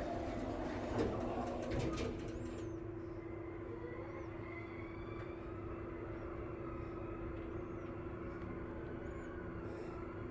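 Mitsubishi Elepet Advance V elevator running with a steady hum, after a few clunks and a hiss that stop about two seconds in. Faint high squeaks come every second or two, in an elevator that its uploader says makes a slight abnormal noise.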